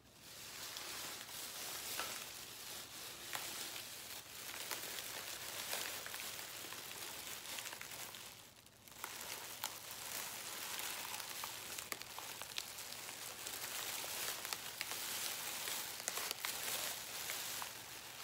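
Thin plastic bag being crinkled and handled close to the microphone: a steady crackle of many small pops, with a short lull a little before halfway.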